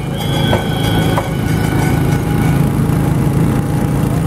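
Motorboat engine running steadily.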